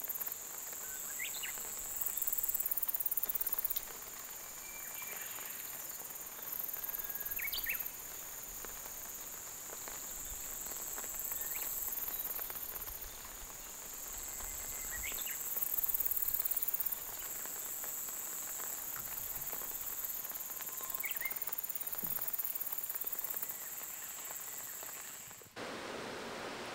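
A steady high-pitched insect chorus, with a still higher layer that swells and fades every few seconds, and short chirping bird calls about every three to four seconds.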